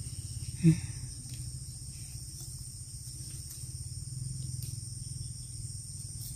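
Crickets and other insects drone steadily at a high pitch over a low steady hum. One short low sound stands out less than a second in.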